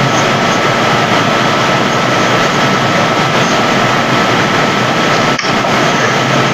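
Loud, steady rushing noise with a thin, steady whistle running through it; it drops out for an instant about five seconds in and again at the very end.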